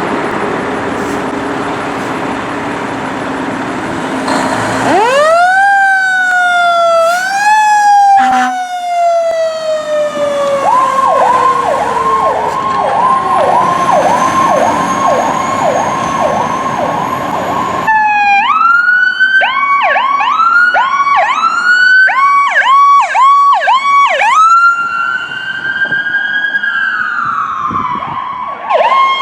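Electronic emergency-vehicle sirens on the Powercall-style tone: repeated rising whoops and a long falling sweep, then rapid repeating dips in pitch, about three a second. The sound cuts suddenly about 18 seconds in to a second siren doing the same whoop-and-chirp pattern. Before the first siren starts, about four seconds in, there is only traffic and engine noise.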